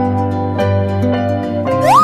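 Background music of gentle plucked notes. Near the end a short whistle-like tone slides up and back down in pitch.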